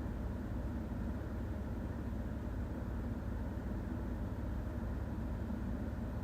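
Steady low-pitched background noise with no rise and fall: no snoring breath is heard in it.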